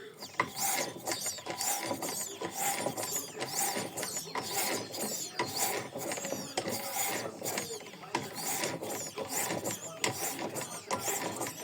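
A 200cc motorcycle engine with its cam chain removed is turned over by hand: repeated irregular clicking and scraping of the tool and moving parts. Air puffs back out of the intake port as it turns, which the mechanic takes for an intake valve that is not seating.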